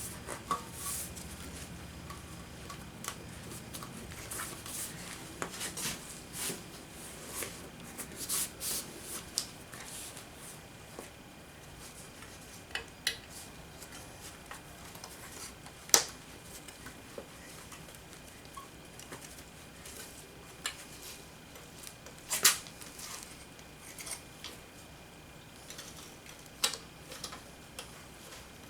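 Hand work on a truck seat cushion and its cover during reassembly: scattered light clicks and knocks over soft rustling, with a few sharper knocks, the loudest about halfway through.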